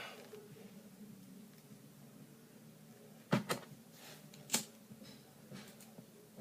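A few sharp clicks and taps of small hard objects: two close together a little past three seconds in, a louder single one about a second later, then a few fainter ticks, over a faint steady hum.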